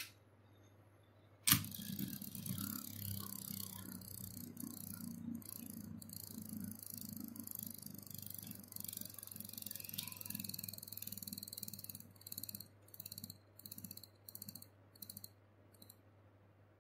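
A Beyblade spinning top lands with a sharp clack in a plastic stadium about a second and a half in, then spins on its tip with a steady whirring scrape. Near the end the sound breaks into a pulsing rattle, a few pulses a second, as the top slows and wobbles, and it dies out.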